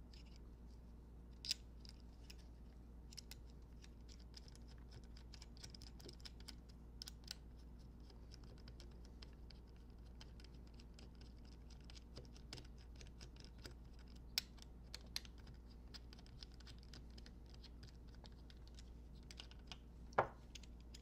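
Faint, sparse clicks and scratches of small metal bolts and a machined clip-on handlebar clamp being handled, with the bolts being threaded in hand tight. There is a sharper single click near the end.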